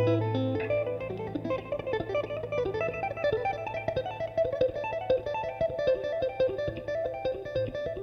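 Electric guitar solo: a fast, even run of short notes tapped with both hands on the fretboard, over a held low note that drops away under a second in.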